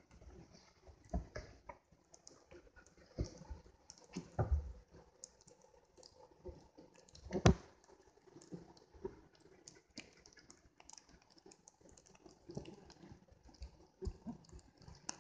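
Irregular knocks, clicks and scrapes of a caver's gear and camera rubbing and bumping against rock while moving through a low cave passage, with a few low thumps about four and a half seconds in and a sharper knock about seven and a half seconds in.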